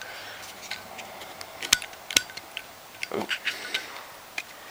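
Small, irregular metallic clicks and ticks from handling a Zippo lighter insert after its flint has been replaced.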